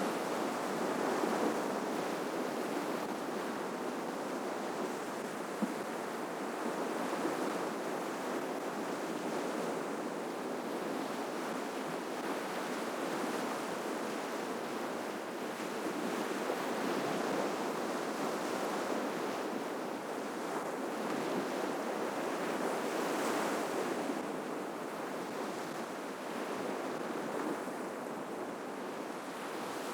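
Ocean waves washing onto the shore: a steady surf wash that swells and eases every several seconds.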